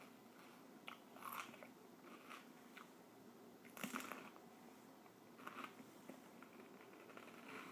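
Faint chewing and biting on a chili pepper: a few irregular short crunches, the loudest about four seconds in.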